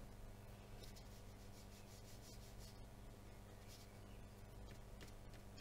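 Very faint scratching of a watercolour brush stroking and dabbing on cold-pressed watercolour paper, in short irregular strokes, over a low steady hum.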